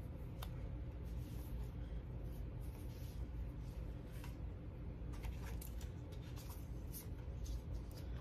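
Light rustling and scattered small clicks of a cardboard eyeshadow-palette box being opened and the palette handled, over a low steady hum.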